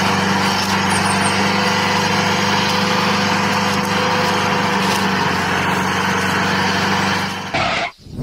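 Mini tractor's engine running at a steady pitch, cutting off sharply near the end.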